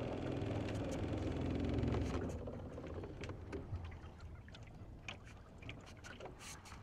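A boat motor's low steady hum, which fades out a little over two seconds in; after it, water lapping and small splashes and clicks against the boat.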